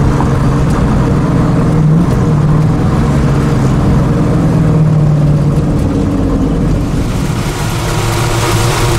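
GM Performance Parts 502 cubic-inch big-block V8 of a 1967 Camaro RS/SS running steadily at low speed, heard from inside the cabin. The engine note changes near the end.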